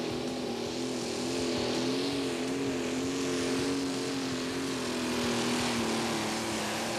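Pro stock pulling tractor's turbocharged diesel engine running flat out under load while dragging the weight-transfer sled, a loud steady engine note that drops slightly near the end.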